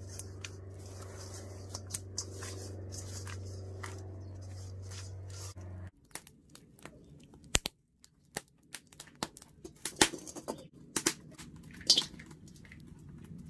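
Hands rubbing coarse salt over whole fish in a stainless steel bowl, gritty scratching over a steady low hum. This cuts off sharply about halfway, and what follows are irregular sharp cracks and clicks from a wood fire burning in a metal drum stove. Near the end a metal spoon knocks on a steel wok as fat is dropped in.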